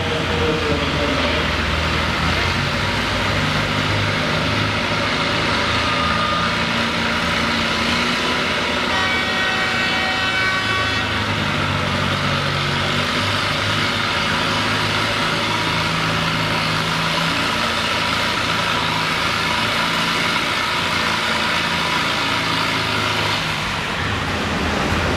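Massey-Harris 444 pulling tractor's engine running steadily while hitched to the pulling sled, its pitch shifting a little a few times. Midway, a horn-like tone sounds for about two seconds over it.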